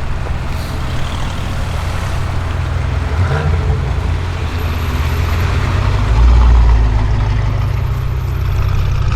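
Audi RS6 Avant C7's twin-turbo 4.0-litre V8 with a Milltek exhaust running at idle, steady and low, with a short rev about three seconds in and a louder low surge around six seconds in.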